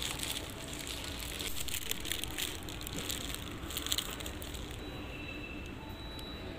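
Paper sandwich wrapper crinkling and rustling as it is folded open by hand, dying away about four seconds in, over a steady low background rumble.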